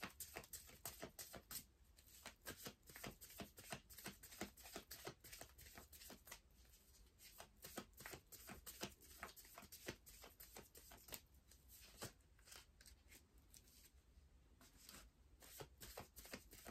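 A tarot deck being shuffled by hand: a faint, irregular run of papery card clicks, thinning out for a couple of seconds past the middle.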